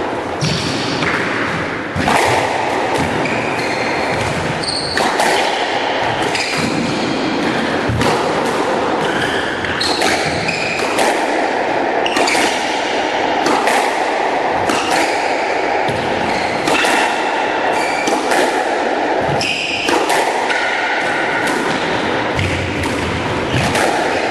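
Squash rally: a squash ball struck by rackets and smacking off the court walls again and again at an irregular pace, with short high squeaks from shoes on the hardwood floor and a steady background noise.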